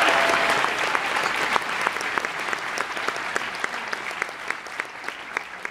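Audience applauding, the applause dying away and thinning out into scattered separate claps.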